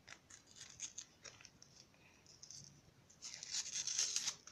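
Paper handled and torn open as a layer of a homemade paper toy package is unwrapped: small crinkles and clicks, then a louder tearing rustle about three seconds in that lasts about a second.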